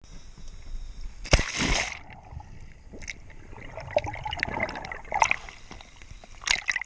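Sea water splashing and gurgling around a waterproof camera as it dips in and out of the surface. There is a loud splash over a second in, bubbling and crackling in between, and two more splashes near the end.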